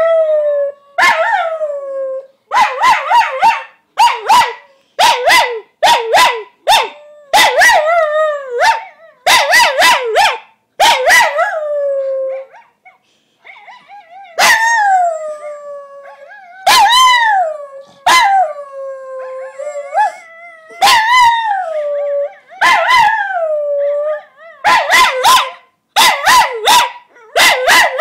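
A Coton de Tulear barking and howling: runs of quick high barks mixed with drawn-out yowls that slide down in pitch, with a brief pause about halfway.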